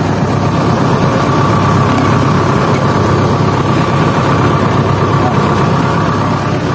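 Excavator's diesel engine idling steadily, with a thin steady whine over the low engine sound.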